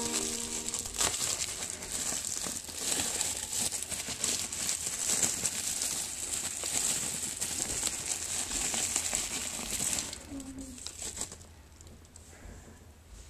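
Plastic bubble wrap crinkling as it is pulled and crumpled off a small toy train engine. The crinkling stops about ten seconds in, leaving only faint handling noise.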